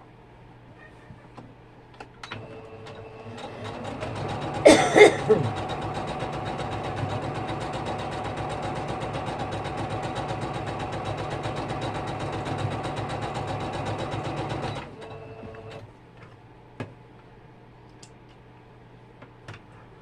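Electric sewing machine stitching: it starts slowly, runs at a steady speed for about ten seconds, then slows and stops. A short loud noise comes about five seconds in, and there are a couple of faint clicks near the end.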